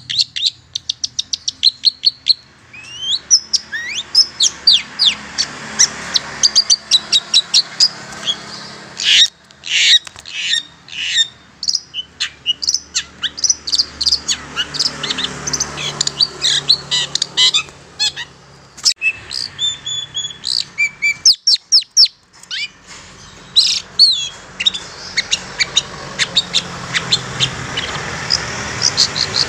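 Long-tailed shrike (cendet) calling: rapid runs of short, sharp chattering notes, broken by a few brief pauses, with some longer whistled notes about two-thirds of the way in. This is the cendet call used as a lure to draw wild shrikes.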